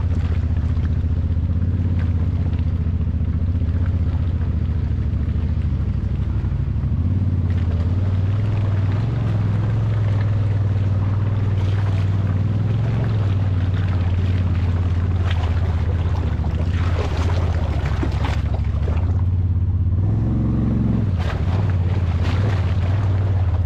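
Polaris RZR 900 side-by-side engine running steadily while driving a rough dirt trail, its note shifting with the throttle a couple of times, with tyre, brush and wind noise over it.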